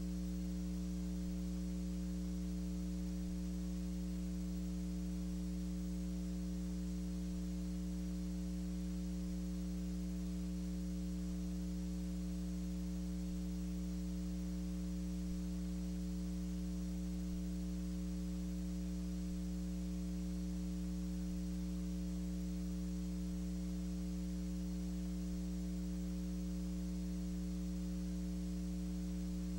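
Steady electrical mains hum with a faint hiss, unchanging throughout; no other sound is heard.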